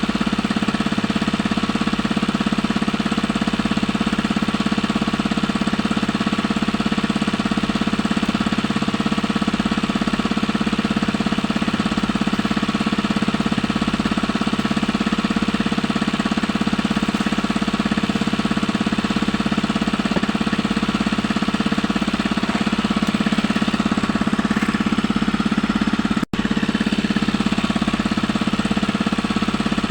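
A small engine running steadily with an even, rapid knocking beat, cutting out for an instant about 26 seconds in.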